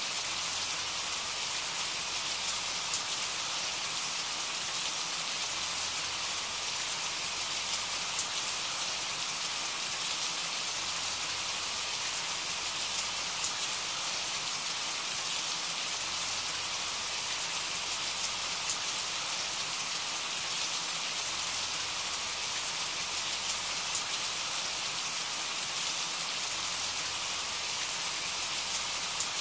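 Steady rainfall: an even hiss of rain with faint scattered drop ticks.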